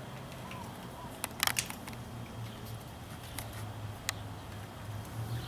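Handling and opening a small bicycle tube patch kit box: a quick cluster of sharp clicks about a second and a half in, then two single clicks, over a low steady hum.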